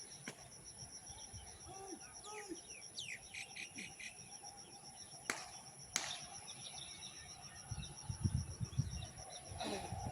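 Outdoor ambience of steady high insect trilling, with scattered short bird chirps. Two sharp clicks come about five and six seconds in, and low rumbling thumps near the end.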